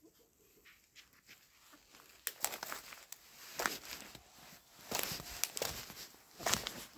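Footsteps crunching on a thin layer of fresh snow over leaf litter and twigs, irregular crunches starting about two seconds in.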